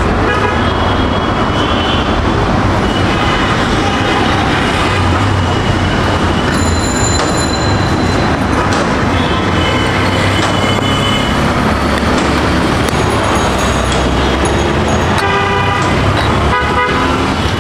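Busy city road traffic: a steady rumble of passing engines, with vehicle horns honking several times.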